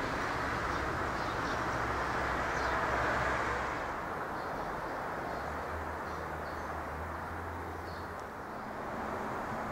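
Noise of a passing vehicle, fading gradually, with a few faint bird chirps over it.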